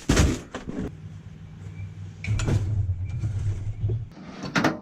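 Things being shifted and knocked about while rummaging through a shed: a knock at the start and a couple of clattering knocks later. A low steady hum runs through the middle.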